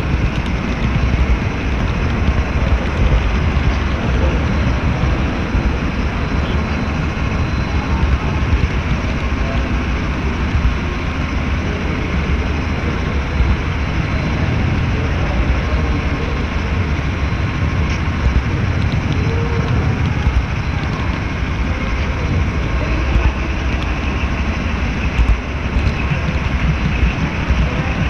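HO-scale model train rolling along the track, heard from a camera riding on one of its flatcars: a steady, even rumble and rattle of the wheels on the rails, with a faint steady whine over it.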